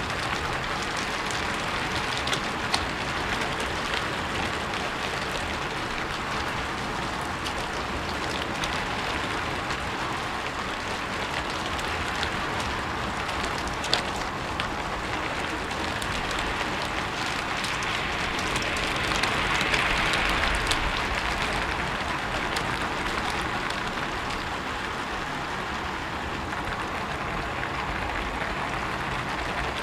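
Steady rain falling on a rooftop, an even hiss of rainfall dotted with the sharper ticks of individual drops striking the roof. It swells a little louder about two-thirds of the way through, then settles back.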